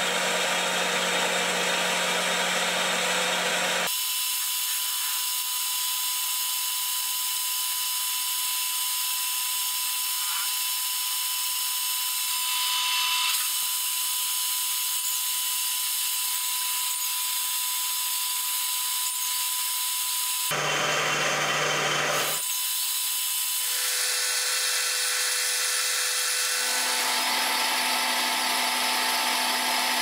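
Metal lathe running, its cutting tool turning down and facing a metal rod: a steady machine whine, with the sound changing abruptly several times.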